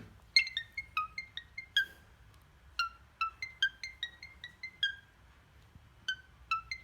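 The iPhone ringtone melody: quick runs of short, bright, plucked-sounding notes that die away fast, in three phrases with brief pauses between them.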